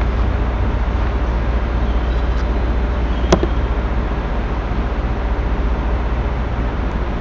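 Steady background noise of the recording: a hiss with a strong low hum underneath, and one brief click about three seconds in.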